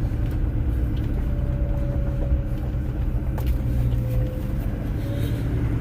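Pickup truck driving, heard from inside the cab: a steady low engine and road rumble, with a faint thin whine drifting in pitch through the middle.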